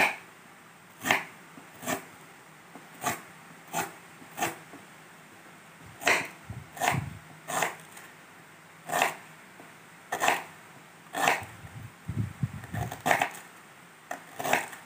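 Kitchen knife slicing fresh ginger and lemongrass on a wooden chopping board: a sharp knock with each cut, about one a second, unevenly spaced.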